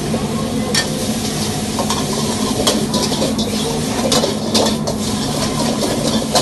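Food sizzling in a hot wok while it is stirred and tossed, with several sharp metal clanks of the ladle against the wok over a steady hum.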